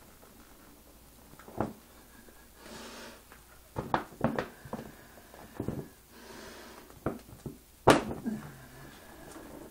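Irregular clicks and knocks of objects being handled and set down, the loudest about eight seconds in, with a few soft hisses between them.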